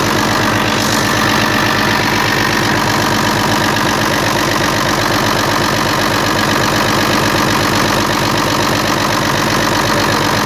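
FNM 180 truck's diesel engine idling steadily.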